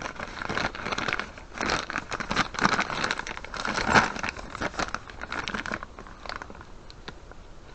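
Plastic bag crinkling as a hand rummages through it for small parts. It is dense and irregular, easing off after about six seconds.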